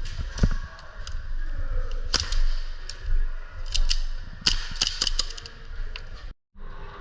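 Airsoft guns firing, with sharp snapping shots at irregular intervals and a quick cluster of several shots a little after four seconds in.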